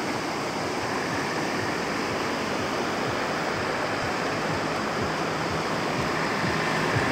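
Swollen, muddy river rushing steadily in spate, a continuous even roar of flowing water that grows slightly louder near the end.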